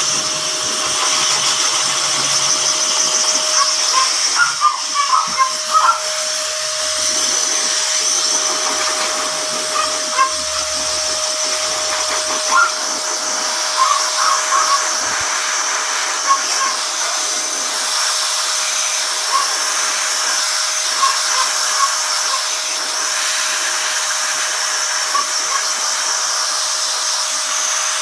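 Hose-type pet blow dryer blowing steadily on a freshly bathed, shaved dog, a loud rushing air noise with a steady hum. Short high chirps break through it here and there.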